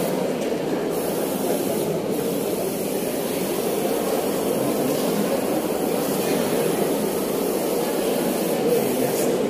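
Steady, indistinct murmur of an audience chatting in a large hall, many voices blended into a hum with no clear words.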